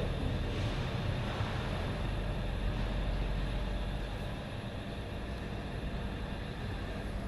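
Steady engine rumble with a hiss, heaviest in the low end and unchanging throughout.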